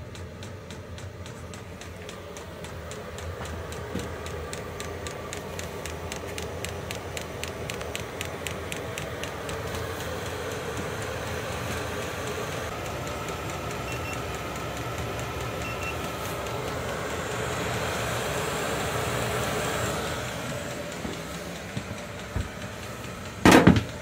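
Vevor 5 kW diesel heater running: a steady mechanical whirr with fast regular ticking in the first half, swelling gradually and easing off again. A loud brief burst of noise comes near the end.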